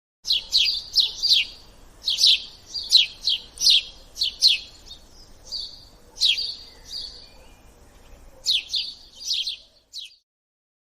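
Budgie chirping: quick runs of short, high, falling chirps, with a brief lull before a last run near the end.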